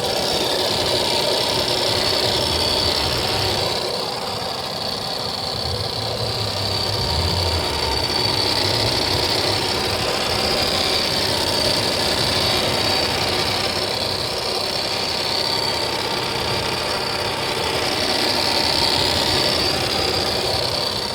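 BMW E93 335i's turbocharged straight-six running steadily just after a cold start, with a ticking over the engine noise that the owner finds strange.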